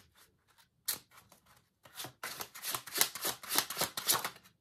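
A tarot deck being shuffled by hand: a few scattered card flicks at first, then from about two seconds in a dense, rapid run of card riffles and slaps that stops just before the end.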